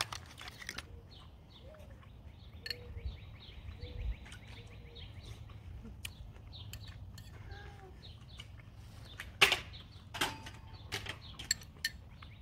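Faint bird chirps over a low steady outdoor hum, with a few sharp clicks near the end from a metal spoon against a ceramic bowl.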